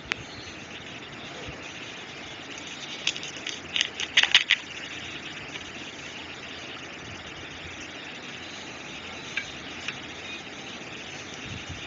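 Light clicks and taps of a nail polish bottle and its brush being handled over a steady hiss: one sharp click at the start, a quick cluster of clicks about three to four and a half seconds in, and two small ticks near the end.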